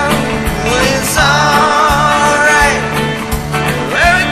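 Music: a song with singing and guitar accompaniment, with a long, wavering held note in the middle and an upward slide near the end.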